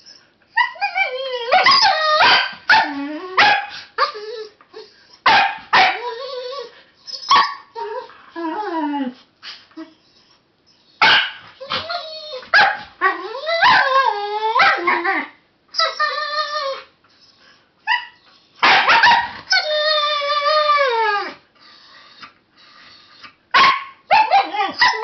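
Siberian husky 'talking': bursts of yips, whines and howl-like calls that waver and slide in pitch, with short pauses between them and a longer falling call about three-quarters of the way through. It is a possessive warning from a husky guarding its stuffed toy from another dog.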